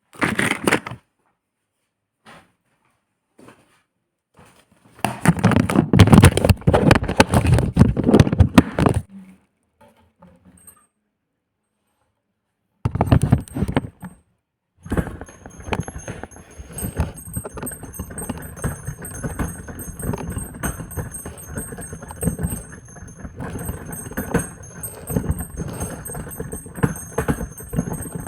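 Old church bells swung full circle (volteo), clanging continuously with a high metallic ring from about halfway through, after several loud, irregular bursts of noise in the first half.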